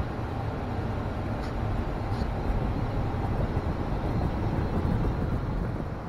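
Steady road noise from inside a moving car's cabin: a low rumble of engine and tyres on the road.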